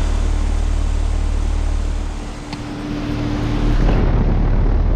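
Outdoor heat pump units, a Carrier Comfort 15 and a Rheem 13PJL, running in heat mode: a steady rush of condenser fan air over a low compressor hum, with a steady tone that stops about four seconds in.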